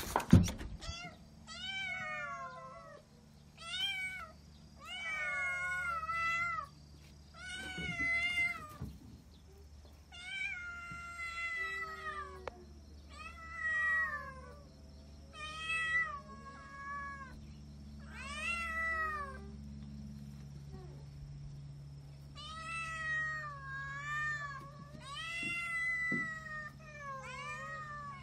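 Kittens meowing over and over, high thin calls that rise and fall, one every second or two. A sharp clunk right at the start as a door is opened.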